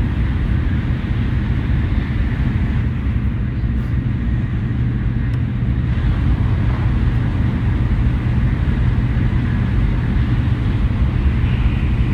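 Shinkansen bullet train running at speed: a steady, loud low rumble, with a higher hiss building near the end.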